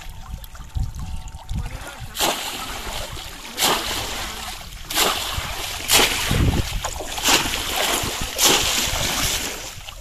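Water splashing hard in shallow paddy-field water at a bamboo polo fish trap as a hand reaches in through its top. After a quieter start there is a run of loud, sudden splashes, roughly one a second, beginning about two seconds in.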